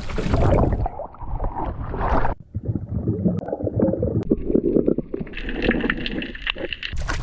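Water gurgling and splashing close to the microphone, muffled. A loud rushing noise falls away about a second in and leaves uneven sloshes and gurgles.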